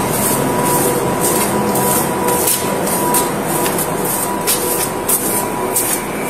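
Steady mechanical hum with a thin constant whine, overlaid by irregular rustles and taps from footsteps and clothing brushing against a body-worn camera as its wearer walks.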